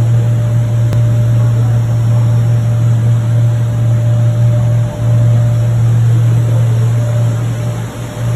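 Plastic welding rod extrusion machine running: a loud, steady low hum with a faint higher tone above it, briefly dipping twice.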